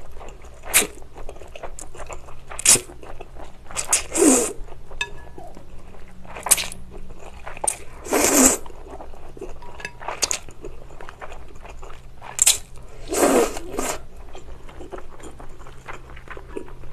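Close-miked slurping of chewy jjolmyeon noodles from a bowl of spicy broth. There are several long wet slurps spread through, with chewing and short mouth clicks between them.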